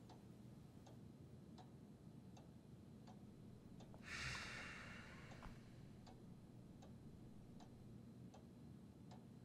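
Near-silent room with a clock ticking steadily, a little under two ticks a second. A brief soft hiss about four seconds in.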